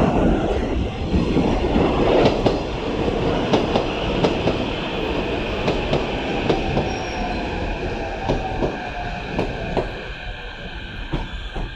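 Kyiv metro train pulling into the station, its wheels clacking over the rail joints with a steady high squeal. In the second half a motor whine falls slowly in pitch as the train slows.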